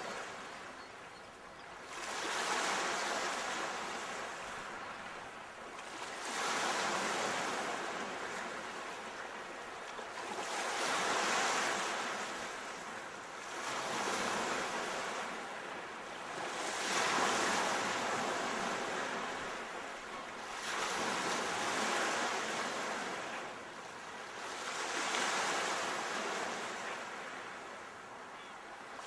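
Sea waves, a rushing wash that swells and fades in repeated surges, about one every four seconds.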